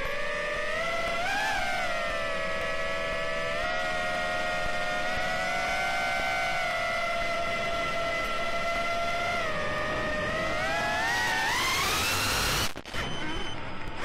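Brushless motors of an Eachine Wizard X220S FPV quadcopter whining, picked up by the drone's onboard video-transmitter microphone. The pitch holds fairly steady, rises with the throttle from about ten seconds in as the drone climbs, dips out sharply for a moment, then comes back.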